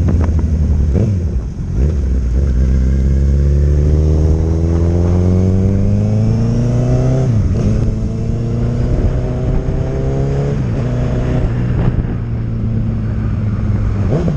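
Honda CB1000R's inline-four engine through an aftermarket sport exhaust, idling and then revved twice: each rev climbs slowly for several seconds before dropping sharply back to idle.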